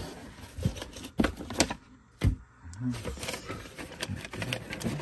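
Irregular light knocks and clicks, a few a second, from cardboard parts boxes being handled and opened.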